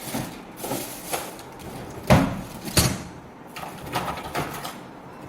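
A run of knocks and clatters from hard objects being handled and set down. The two loudest come about two and three seconds in, with lighter ones around four seconds.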